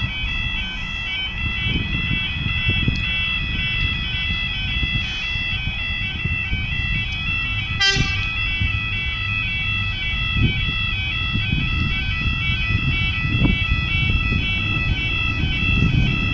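Level crossing audible warning alarm sounding without a break: a high-pitched, pulsing electronic warble that signals an approaching train. Beneath it is a low rumble that grows near the end as a Tyne and Wear Metro train draws up to the crossing.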